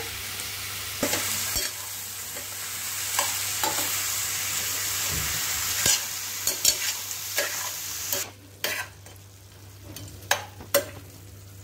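Chicken pieces with onion and ginger-garlic paste sizzling in oil in a steel pan, stirred and scraped with a steel spatula, with scattered clinks of metal on metal. The sizzle drops away about eight seconds in, leaving a few sharp spatula knocks.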